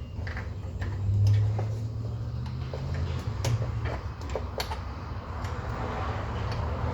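Hand ratchet clicking in short, uneven strokes while working a transmission bolt loose, over a steady low hum that swells about a second in.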